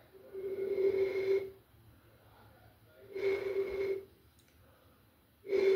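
Three breathy exhales through the nose, each about a second long with a faint steady whistle in it, while sipping from a glass bottle.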